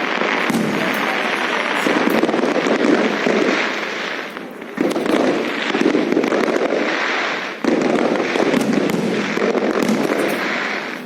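Fireworks going off continuously in a dense, crackling barrage of many overlapping bursts. Fresh louder volleys break in suddenly about five seconds and about eight seconds in.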